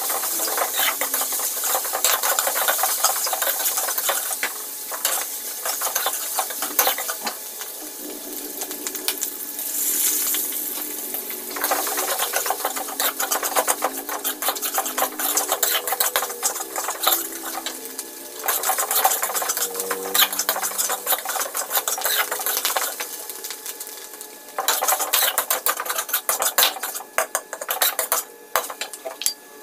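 Metal spatula scraping and clacking against a wok as meat, egg and vegetables are stir-fried in hot oil, with sizzling under the rapid strokes. The stirring eases off for a few seconds about a quarter of the way in and again about three-quarters through.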